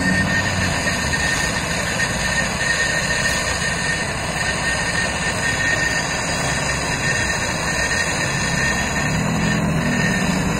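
High-pressure LPG torch burning with a steady hiss, its flame heating a wire joint red-hot for brazing. A thin steady whistle runs through the hiss.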